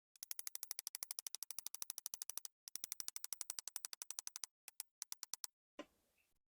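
A tool ratcheting: rapid, even clicks at about a dozen a second in two long runs and a short burst, then a brief scraping knock near the end.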